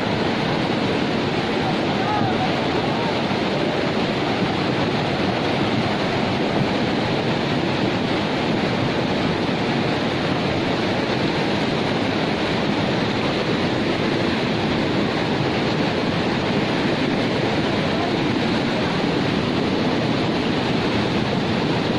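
Steady rushing of a flooded river: fast-flowing floodwater making an even, unbroken noise.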